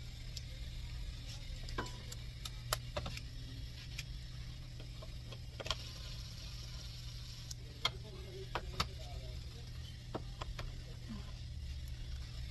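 Scattered light clicks and ticks of parts and plastic being handled in an engine bay, over a steady low hum.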